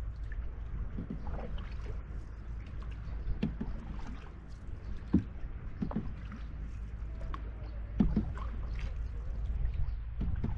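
Canoe being paddled: paddle strokes splashing in the water every second or two, with water lapping at the hull, over a steady low rumble.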